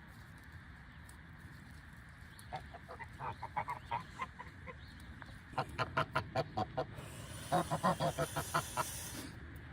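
Geese honking in quick runs of short calls, several a second, starting about two and a half seconds in and coming in three bursts.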